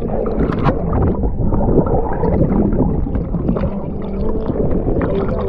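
Lake water sloshing and splashing around an action camera held at the surface, a muffled gurgling wash with many small splashes.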